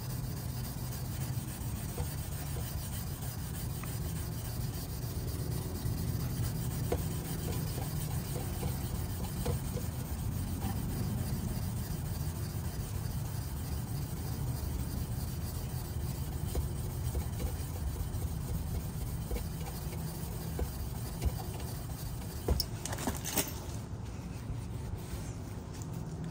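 Fine 0000 steel wool scrubbing back and forth on a chrome exhaust-tip trim, rubbing off carbon soot buildup. The scrubbing stops near the end.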